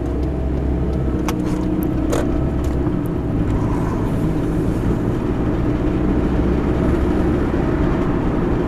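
Steady cabin noise of a car driving along a road: engine and tyre noise heard from inside, with a couple of light clicks in the first few seconds.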